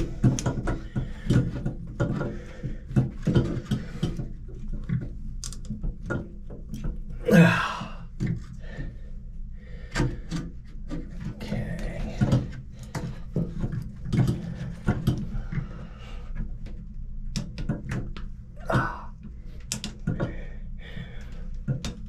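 Scattered knocks, clicks and handling noises as a bar clamp is worked into place behind a Moen shower valve inside the wall opening, to back the loose valve. One louder, drawn-out noise comes about seven and a half seconds in.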